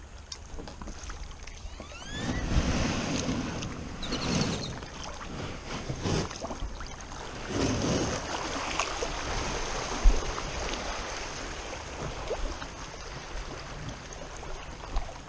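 Water sloshing and splashing around a fishing kayak, in uneven surges.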